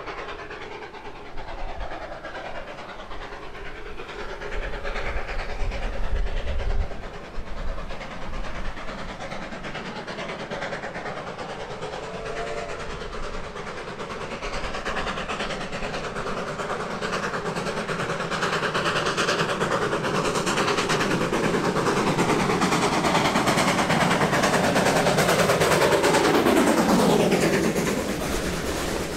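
Baldwin AC16 steam locomotive approaching and passing close by, its running sound building steadily louder, with the pitch dropping sharply as it goes past near the end.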